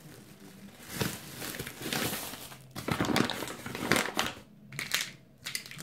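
A thin clear plastic bag around a packet of wheat flour crinkling as it is handled, in irregular bursts starting about a second in.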